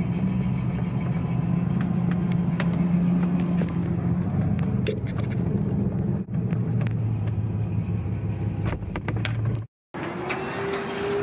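Van engine and road noise heard from inside the van while it drives: a steady low drone whose pitch steps down about halfway through, with small rattles and clicks. It cuts off abruptly near the end.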